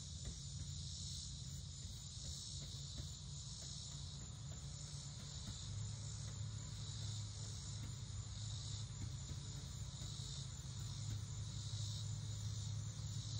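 Crickets chirping in a continuous, gently pulsing high trill, over a low steady hum that strengthens about halfway through.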